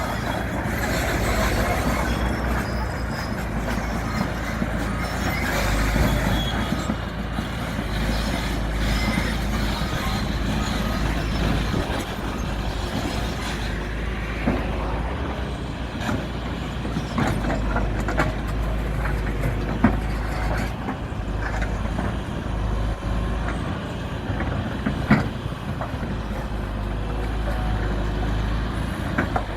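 Construction site noise: a heavy vehicle or machine engine running steadily, with occasional sharp knocks and clanks.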